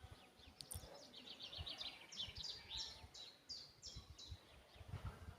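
A songbird singing one phrase: a quick run of high chirps that slows into longer notes, each falling in pitch, lasting about three seconds. There are faint low rumbles of wind or handling on the microphone.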